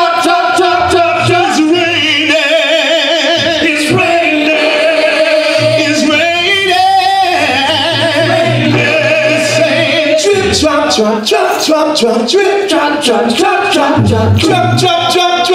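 Gospel praise team of male and female voices singing together through microphones and a PA, with vibrato on the held notes, over a low bass line and a steady beat.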